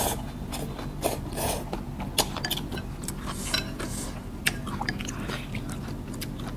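Two people eating noodle soup: chewing and slurping noodles, with scattered sharp clicks of chopsticks and spoons against bowls.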